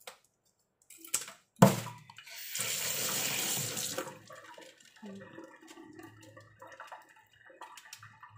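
Sharp knock in a stainless-steel kitchen sink, then the faucet runs for about a second and a half as tiger prawns are rinsed clean, followed by softer wet handling sounds in the sink.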